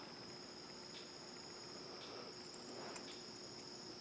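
Quiet room tone with a steady, faint high-pitched whine and a few very faint ticks about a second apart.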